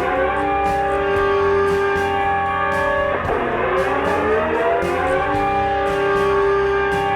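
Loud, siren-like electronic tone rich in overtones, held steady, then dipping and sweeping back up in pitch about three seconds in. It is the alarm of a homemade fake Emergency Alert System (EAS) broadcast.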